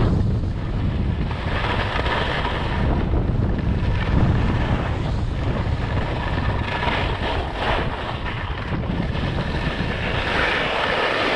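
Wind buffeting the microphone of a skier going downhill, with skis hissing and scraping over the snow, the hiss swelling every couple of seconds with each turn.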